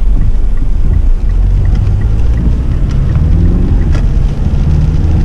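Car driving on a rain-flooded street, heard from inside the cabin: a steady low engine and road rumble with faint taps of rain on the body. The engine note rises slightly past the middle.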